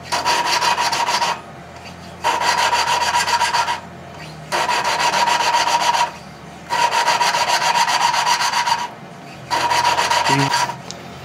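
A valve being lapped into its seat in a flathead Tecumseh engine block with a suction-cup lapping stick and grinding compound: a gritty grinding with a ringing note, in five spells of a second or two. Short pauses between them come as the valve is lifted and set back down, which starts the grinding over again.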